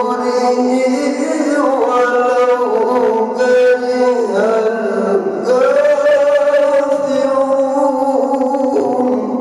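A man's voice reciting the Quran in the melodic, chanted tilawat style, holding long notes that slide up and down in pitch. About halfway through it rises into one long held note that carries on until near the end.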